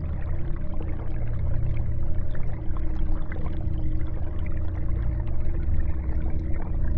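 Aquarium air bubbles rising through the water in a steady, continuous gurgle with small popping ticks, over a low steady hum from the tank's equipment.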